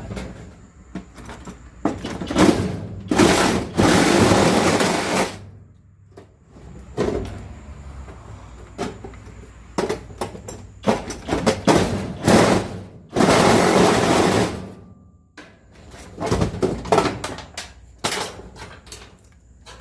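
Dryer sheet metal being worked and torn loose by hand. Long rasping scrapes of a second or two come again and again, the longest a little after the start and again past the middle, with scattered clanks and knocks between them.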